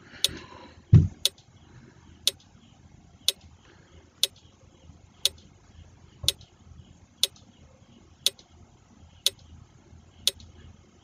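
Quiz countdown timer sound effect ticking once a second, a sharp even click each time. There is a single low thump about a second in.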